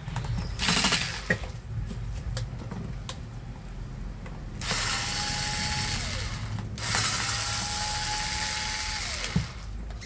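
A small 4.8-volt cordless screwdriver backs screws out of a hair dryer's plastic housing. After a short burst about a second in, its motor runs twice for about two seconds each. Each time the steady whine falls in pitch as the motor spins down on release.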